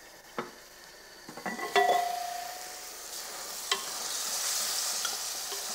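Veal pieces and onion frying in a pot and being stirred with a wooden spoon; the sizzle builds and grows louder from about halfway in. A knock with a brief ringing tone, a utensil against the pot, comes just before the sizzle builds.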